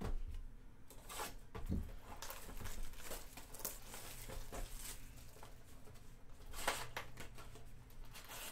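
Plastic shrink wrap crinkling and tearing as it is peeled off a sealed cardboard box of trading cards, with the cardboard box handled and opened, in a run of irregular crackles and rustles that grow louder about two-thirds of the way through.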